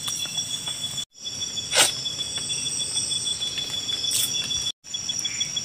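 Night insect chorus of crickets: several steady high-pitched trills, one of them pulsing about five times a second near the end. A short sharp sound about two seconds in, and the sound cuts out briefly twice.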